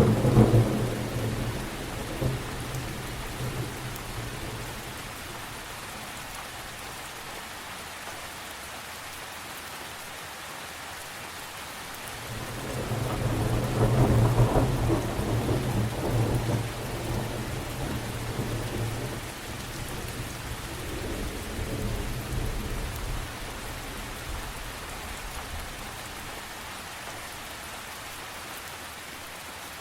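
Thunderstorm sound effect: steady rain with a loud thunderclap at the start that dies away over a few seconds. A long low rumble of thunder swells about halfway through, and a fainter roll follows soon after.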